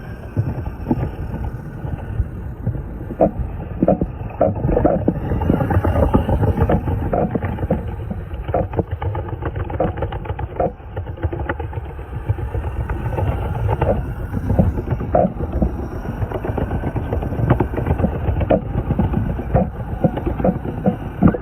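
Rumbling road noise from wheels rolling fast over the street, with frequent sharp clatters and knocks.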